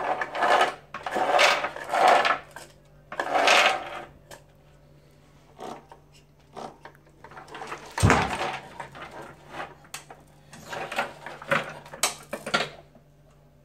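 A wooden-framed test cart carrying a phone gimbal is rocked and tilted by hand on a tile floor. Its frame and wheels rattle and scrape in irregular bursts, with a hard knock about eight seconds in. A faint steady hum runs underneath.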